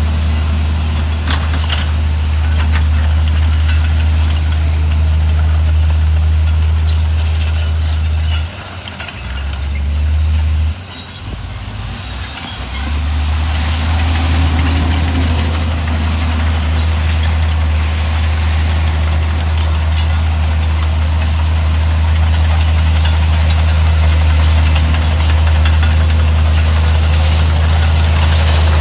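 Heavy diesel engine of an earthmoving machine running under load with a deep, steady drone. About eight and a half seconds in, and again at about eleven seconds, it briefly drops back and then comes up again.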